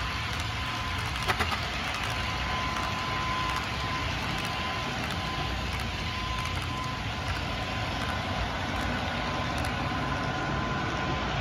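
HO scale double-stack container cars rolling along the track into a tunnel, a steady running noise with a thin steady high tone under it and one sharp click about a second in.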